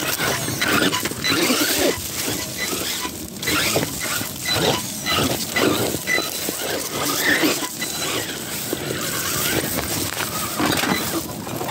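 RC rock bouncer crawling over rocks: its electric drivetrain whines in irregular bursts, while the tyres scrabble and the tube chassis knocks and scrapes on rock.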